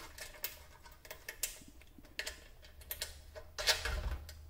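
Scattered light clicks and taps of fingers handling the screw-on terminal caps and crimped ring terminals on a small power inverter's DC input posts, a little louder near the end.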